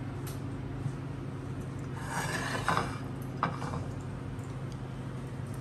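Quiet kitchen handling noises over a steady low hum: a short rubbing scrape about two seconds in, and a couple of small knocks.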